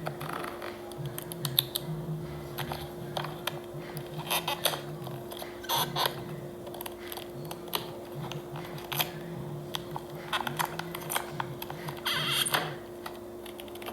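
Rap song's beat playing without vocals: a repeating bass line under a steady held tone, with scattered sharp clicks.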